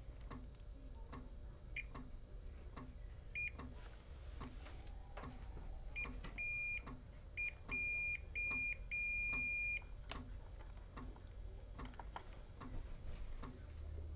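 Multimeter continuity beeper sounding in short, broken beeps of a steady high tone, cutting in and out as the probes make and lose contact on the XLR cable's pin-2 wire: an intermittent connection from a broken conductor. Faint regular ticking about twice a second runs underneath.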